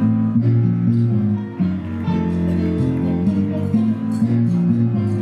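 Background music led by guitar, with chords changing every half second or so.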